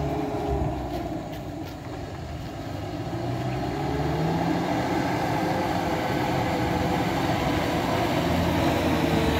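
Heavy vehicle engine running with a deep, steady rumble that slowly grows louder, as a vehicle labours up a steep, slippery climb.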